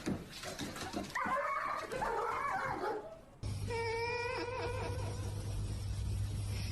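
A dog whining and yipping in short, irregular, wavering calls. After a break about three seconds in, a longer wavering whine sounds over a steady low hum.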